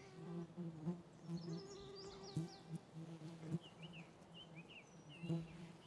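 A flying insect buzzing close by, on and off, with small birds chirping in the background and a few clicks.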